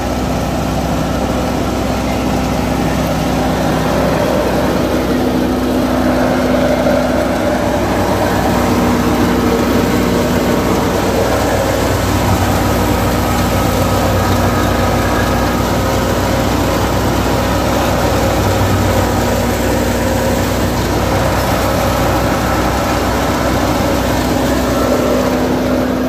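National wheat thresher running while wheat is fed into it, together with the tractor engine beside it: a loud, steady mechanical drone with a constant low hum.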